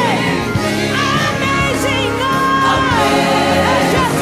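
Gospel choir singing with a live band. The voices run up and down in wavering lines and hold one long note about halfway through.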